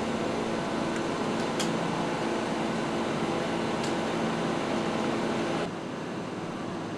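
Steady drone of heavy construction machinery engines running, with two short high clinks about one and a half and four seconds in. The drone drops to a lower level about five and a half seconds in.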